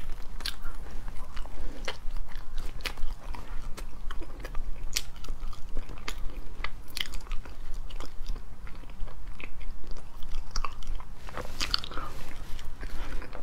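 Close-miked mouth sounds of a person biting and chewing a small, soft lotus-seed-paste mooncake with salted egg yolk, with many irregular short sharp clicks.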